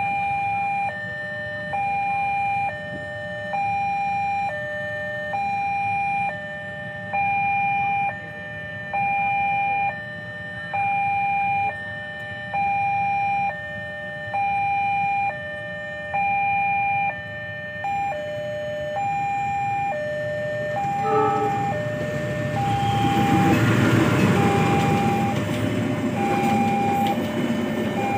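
Railway level-crossing warning alarm sounding two alternating tones, high and low, each held about a second. About 22 seconds in, a passenger train arrives and runs across the crossing, and its loud rumble of wheels and carriages grows under the continuing alarm.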